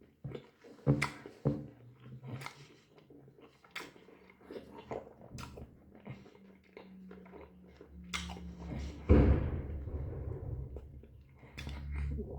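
Close-up chewing and biting of a doner kebab: wet mouth sounds and short crunches throughout. There is a loud low thump about nine seconds in.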